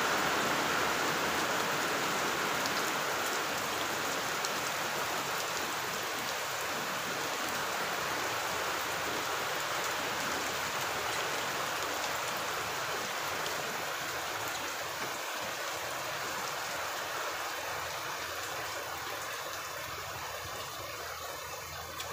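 Steady rain falling, an even hiss that slowly eases off.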